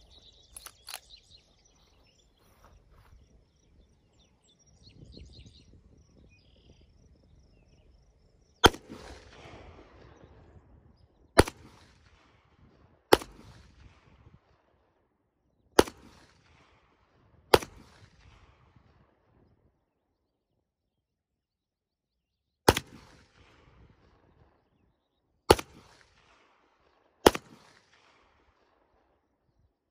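CZ Shadow 2 9mm pistol fired eight times, one shot at a time at uneven intervals over about twenty seconds. Each sharp report is followed by a short echoing tail.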